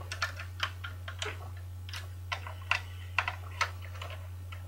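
Plastic Lego pieces clicking and clacking as they are handled, a dozen or so irregular sharp clicks over a steady low hum.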